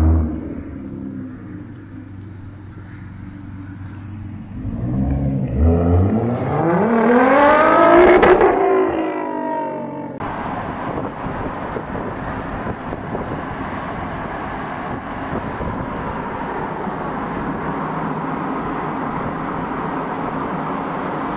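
Sports car engine revving and accelerating, its pitch climbing to a peak about eight seconds in and then dropping. About ten seconds in the sound cuts abruptly to a steady rushing vehicle noise.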